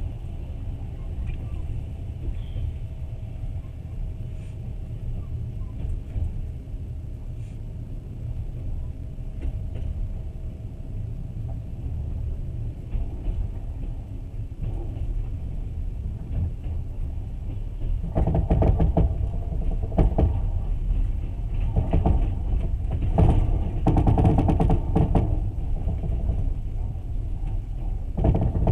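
Passenger train running on the rails, heard from aboard: a steady low rumble of wheels on track. About two-thirds of the way in it grows louder, with repeated clattering knocks.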